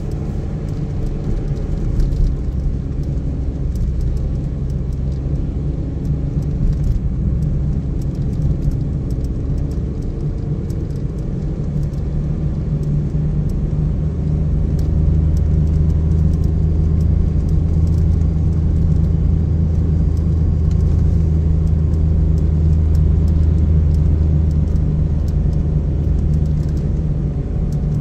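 Car cabin noise while driving: a steady low engine and road rumble, which grows heavier and droning about halfway through.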